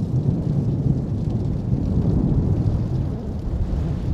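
Wind buffeting the microphone: a steady, loud low rumble that surges and dips.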